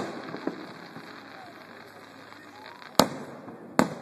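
Aerial firework shells bursting, heard from far off: a faint bang about half a second in, then two loud bangs less than a second apart near the end, each trailing off briefly.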